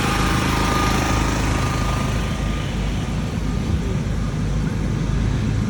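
Gasoline or diesel generator engine running with a steady hum, supplying power during a blackout. A faint high tone fades out about two and a half seconds in.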